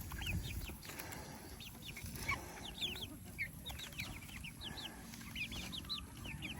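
A small flock of young chickens clucking and peeping, many short high calls several times a second.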